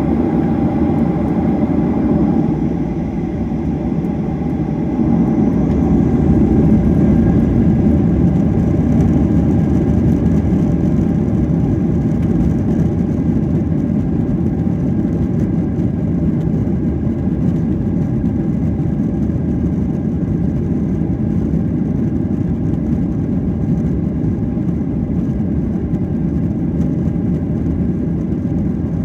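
Boeing 737-800's CFM56 jet engines and airframe rumble heard from inside the cabin during the takeoff, a steady loud low rumble with faint engine tones that grows louder about five seconds in and then holds.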